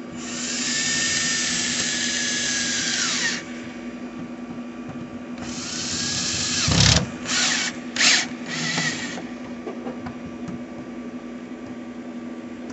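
Power drill driving the deadbolt's long mounting bolts: one run of about three seconds whose whine sags and then falls away as it stops, a second run that ends in a knock, then three short trigger pulses to snug the bolts.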